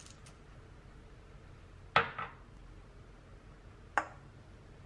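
Hard objects knocking together: a quick double clink about two seconds in and a single clink about two seconds later, each short and sharp.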